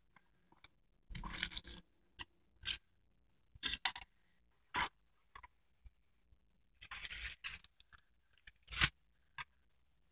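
Objects and packaging being handled and set down: scattered short scrapes, rustles and light knocks at irregular moments. The sharpest is a single knock near the end.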